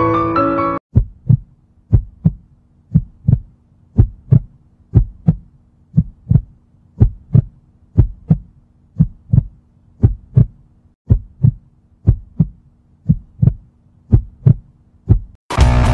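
Heartbeat sound effect: paired low thumps, lub-dub, about one beat a second, over a faint steady hum. Piano music cuts off just before the beats start, and band music with guitar comes in near the end.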